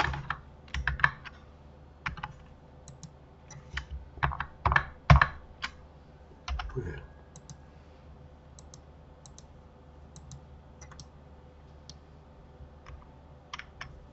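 Irregular clicks of a computer keyboard and mouse: single keypresses and short bunches, louder and closer together in the first half, then sparse faint ticks.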